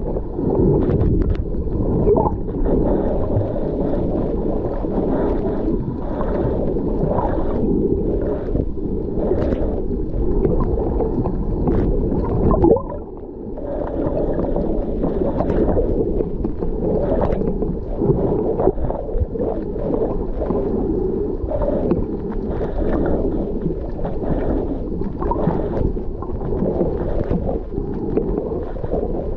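Muffled underwater rumble and gurgling of water against a submerged action camera's housing, with frequent short splashes and bubbles. It dips quieter for a moment about thirteen seconds in.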